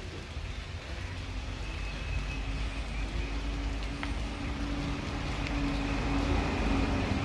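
A motor vehicle's steady engine hum, growing gradually louder, with a faint high whine over it.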